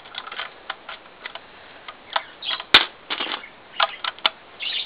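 Plastic Lego pieces clicking and clattering as they are handled and pressed together, with one sharp, louder click nearly three seconds in.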